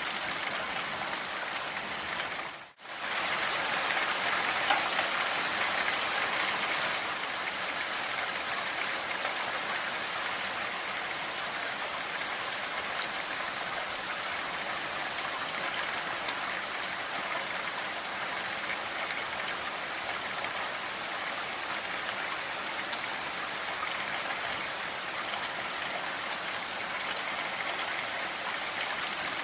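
Steady rain falling, an even hiss of many drops. It cuts out for a moment about three seconds in, then comes back a little louder.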